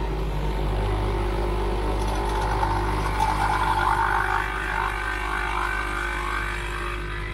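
Nespresso capsule machine brewing: its pump gives a steady low buzzing hum. From about three seconds in, a higher gurgling layer joins as coffee runs into the mug, then fades again near the end.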